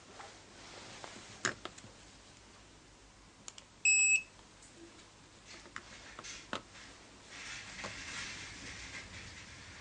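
Wireless pager receiver of a vibrate-and-beep paging system sounding one short, high-pitched electronic beep about four seconds in. A few faint clicks come before and after it.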